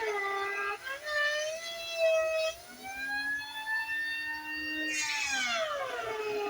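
Electric hand planer whining, its pitch shifting as it is pushed across the timber. About five seconds in there is a rough, noisy burst of cutting, and the motor's pitch then falls as it takes the load.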